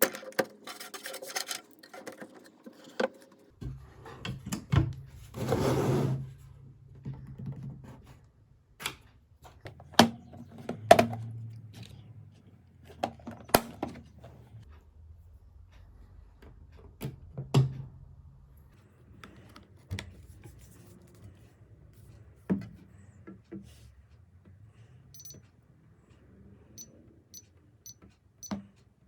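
Handling of a metal biometric pistol safe: scattered clicks and knocks, with a brief noisy swish about six seconds in. Near the end come five short, evenly spaced high electronic beeps.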